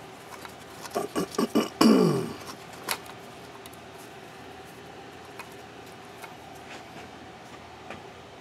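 A few light clicks and taps of metal parts handled on the top of a two-stroke engine cylinder as a new head gasket is set over the studs, with a short falling-pitched sound about two seconds in. After that only a faint steady hum.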